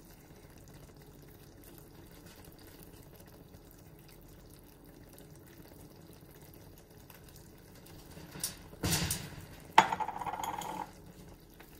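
Steaks quietly simmering in a wine sauce in a large pan, a faint steady bubbling. About nine seconds in come a click, a brief rustle and then a sharp knock with a second of clattering handling noise as a utensil is picked up over the pan.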